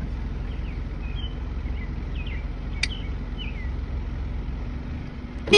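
Birds chirping in short falling notes over a steady low outdoor rumble, with a single sharp click about three seconds in. A loud horn blast starts right at the very end.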